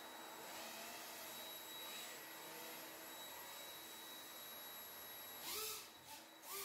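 3D-printed RC hovercraft's electric propeller fans whining softly at low throttle, their pitch wavering as it is steered. Two short, louder revs rise and fall in pitch, about five and a half seconds in and again at the end.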